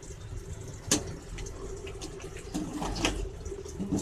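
A metal spoon stirring soft-boiled rice in a metal pot, with a few sharp clinks of the spoon against the pot, over a steady low hum.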